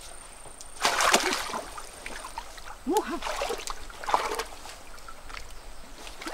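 Hands splashing and stirring in shallow stream water, in a few separate bursts, with brief vocal sounds between them.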